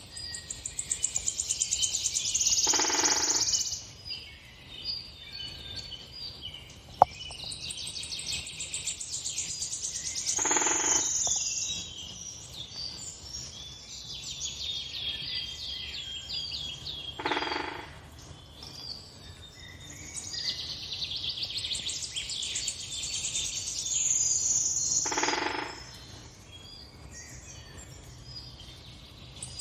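Several songbirds chirping and trilling, with quick runs of high notes. A louder, fuller call comes four times, about every seven seconds, and there is a single sharp click about seven seconds in.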